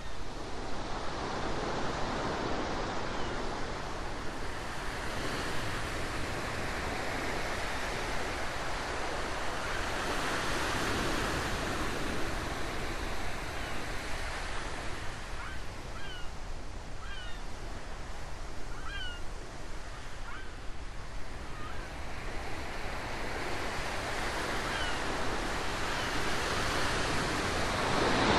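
Recorded ocean waves washing in and easing back in slow swells. A few short, faint high calls sound in the middle.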